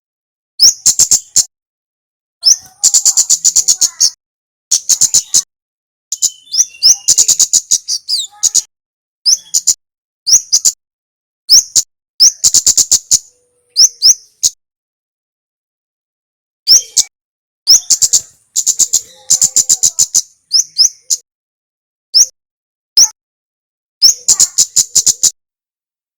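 Male kemade (kemlade merah) singing. Bursts of very rapid, high ticking chips alternate with single sharp upward-sweeping chirps, with a pause of about two seconds partway through.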